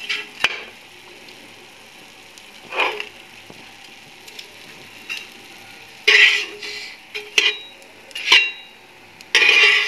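Oil sizzling steadily in a non-stick frying pan. A spatula scrapes and knocks against the pan about six times as fried bread rolls are lifted out.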